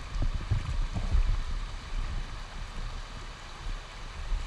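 River water rushing and gurgling over shallow riffles around a kayak's hull, with heavier low thuds in the first second or so.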